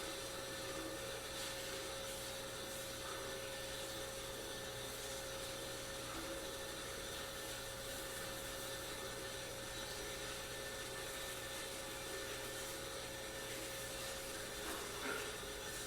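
Aquarium running steadily: a constant hum from its pump under a soft, even hiss of circulating water, with one brief faint knock near the end.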